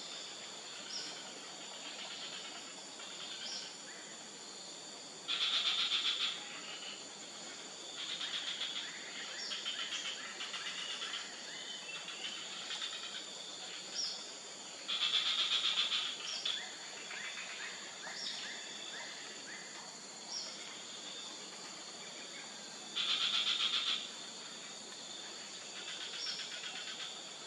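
Outdoor nature ambience: a steady high insect drone with short scattered bird chirps. A loud, rasping buzz about a second long comes three times, roughly every eight seconds.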